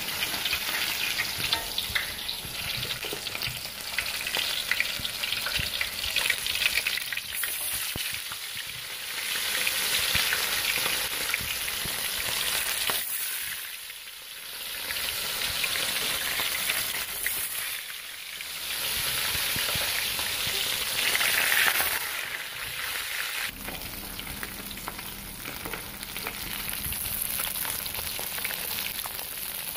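Battered small fish deep-frying in hot oil, a dense sizzle with crackling spatters. The level swells and eases every few seconds.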